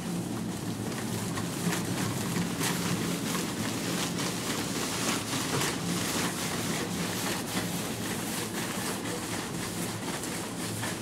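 Steady whir and hum of the blower fan that keeps an inflatable T-rex costume blown up, with repeated light clicks and rattles from a shopping cart being pushed.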